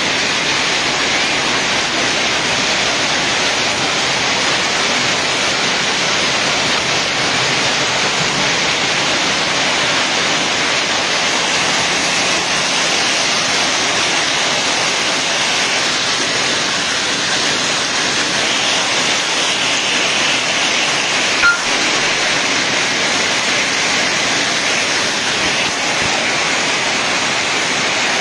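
Heavy rain and hailstones falling, a steady dense hiss. A single sharp knock about three quarters of the way through.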